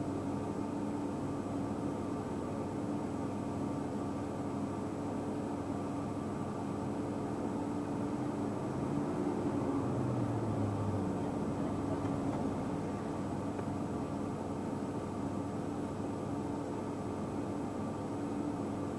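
Steady motor hum over an even rushing noise, swelling briefly about nine seconds in.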